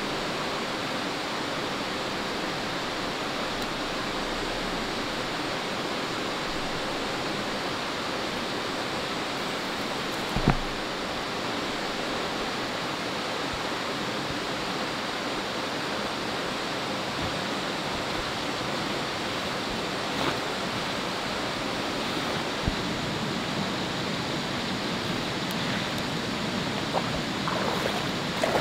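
Steady rushing of a stream flowing over rocks. About a third of the way through there is a single sharp knock, and a few fainter clicks come near the end.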